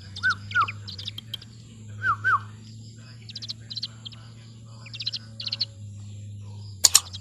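Birds chirping and twittering, with two pairs of short rise-and-fall whistled notes in the first few seconds and two sharp clicks near the end, over a steady low hum.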